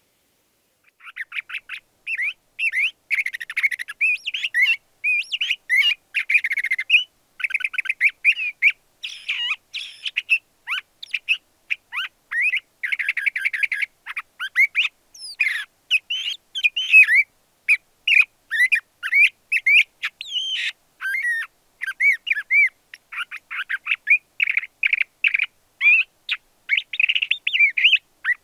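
LeConte's thrasher singing: a long run of varied phrases of rapid chirps, trills and slurred notes, broken by short pauses, starting about a second in.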